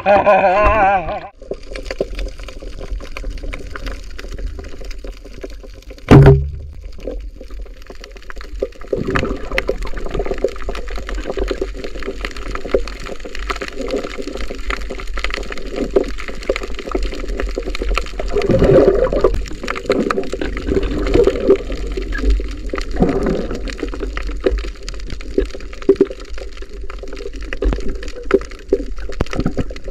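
Water sound picked up by a camera just below the surface: a low rumble with steady fine crackling, a single sharp loud knock about six seconds in, and louder swells of water noise later on. A brief voice is heard at the very start, before the camera goes under.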